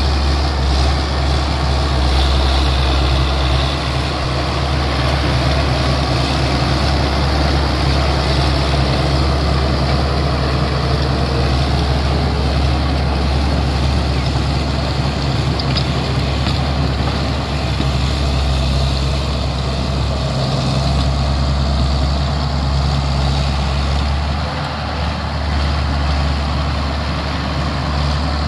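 Crawler tractor engine running steadily under load while the tractor drags a heavy tiller through dry soil, with a deep, even engine note.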